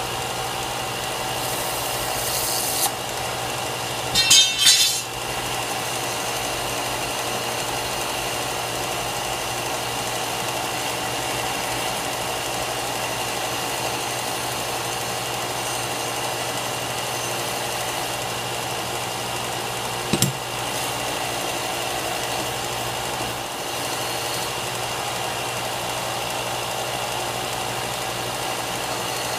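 A small motor running steadily with a constant whining hum. Metal clinks briefly about four seconds in and once more about twenty seconds in as the red-hot railroad spike is twisted in the vise.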